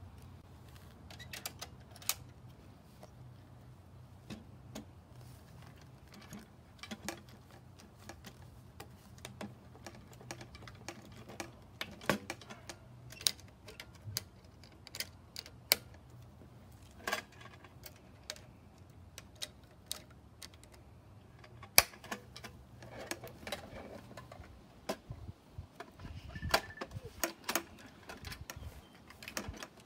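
Scattered, irregular clicks and knocks of the Geonics EM-31 MK2's transmitter tube being handled, fitted into its connector and clamped in place.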